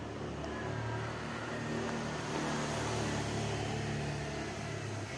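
A motor vehicle's engine running past, its low hum swelling through the middle and easing off towards the end.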